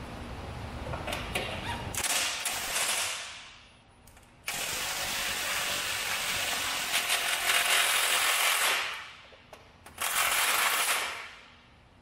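Power tool driving bolts in three bursts: a short one, a longer one of about four seconds, then a short one, each winding down at the end.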